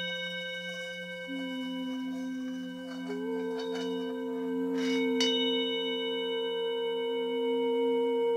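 Ambient background music of sustained, ringing bell-like tones that pulse slowly, with new tones entering one after another and a fresh strike about five seconds in.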